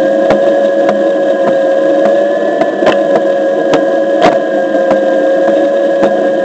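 Onewheel XR electric board rolling along a concrete sidewalk: the hub motor's steady whine over tyre noise, with quick regular clicks and two louder knocks about three and four seconds in.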